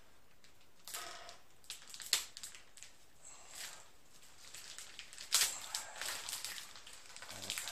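Plastic packaging crinkling and crackling in irregular bursts as it is torn and pulled off a drone remote controller. The loudest crackles come about two seconds in and about five seconds in.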